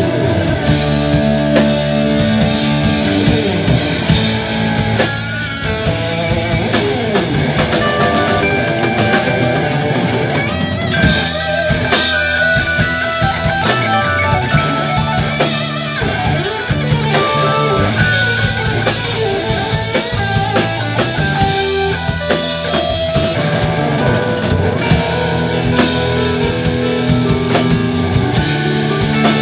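Live rock band playing an instrumental passage without vocals: an electric guitar carries the melody over strummed acoustic guitar, bass and a drum kit.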